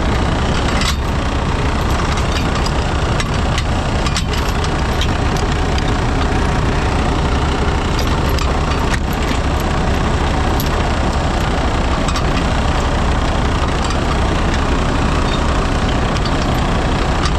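Heavy truck diesel engine running steadily at idle, a constant low rumble, with a few light knocks about a second, four seconds and nine seconds in.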